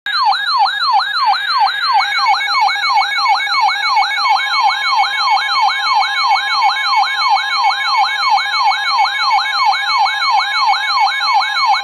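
Electronic alert siren sounding a fast, repeating falling yelp, about three sweeps a second, with a steady higher tone joining about a second in.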